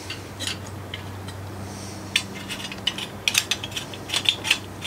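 Light metallic clicks and clinks of rocker arms and pushrods on a Ford FE V8's rocker shaft as they are worked into position by hand, coming in a quick irregular run from about two seconds in.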